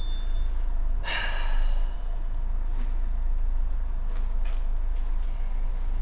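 A man sighs heavily about a second in, over a steady low rumble. A few faint clicks follow as he handles the bicycle parts.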